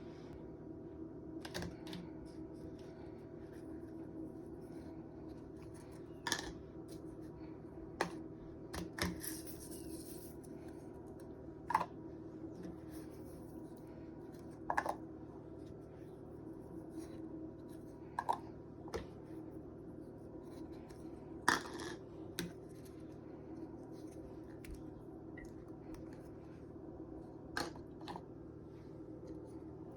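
Kitchen handling sounds: about ten scattered light clicks and knocks of utensils and containers over a steady low hum.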